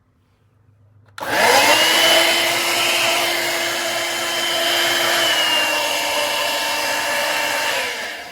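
Shark cordless vacuum motor switched on, its whine spinning up quickly and then running steadily. The pitch dips slightly about halfway through, and the motor winds down as it is switched off near the end.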